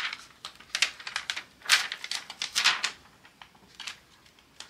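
Clear plastic cover film on a diamond painting canvas crackling and crinkling as fingers lift and press it, in a run of short crackles. The crackles are busiest in the first three seconds and thin out after that.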